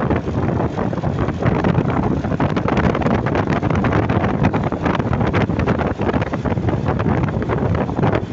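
Heavy wind buffeting on the microphone over the rumble of a moving vehicle, with no horn tune heard.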